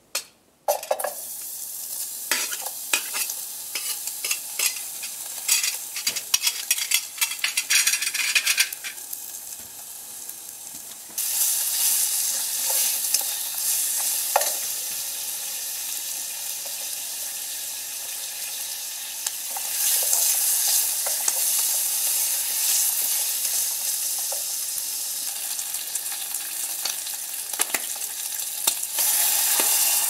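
Wood fire in a small folding box stove (Bushbox LF) crackling, with many sharp snaps and clicks for the first nine seconds or so. From about eleven seconds in it changes to a steady hiss of burning flames, with scattered pops.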